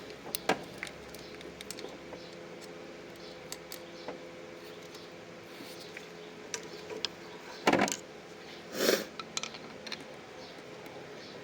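Light metallic clicks and ticks of a motorcycle throttle cable's knob end being worked into its hole on the carburettor linkage, with two louder scraping knocks near the end, over a faint steady hum.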